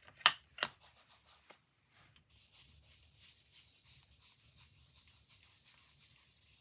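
A foam blending tool knocks twice on an ink pad in the first second as it is loaded with ink. It is then rubbed over cardstock, blending ink in a soft, steady rubbing hiss.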